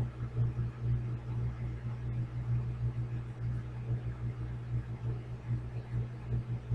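Electric fan running close to the microphone: a steady low hum with a faint hiss.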